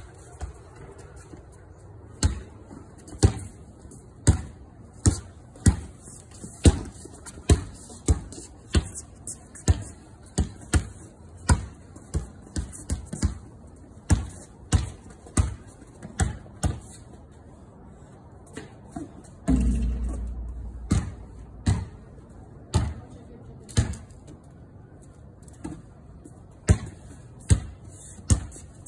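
A basketball being dribbled on a concrete patio, bouncing about once or twice a second. About two-thirds of the way through, the bouncing pauses briefly and there is a deep thump with a rumbling tail.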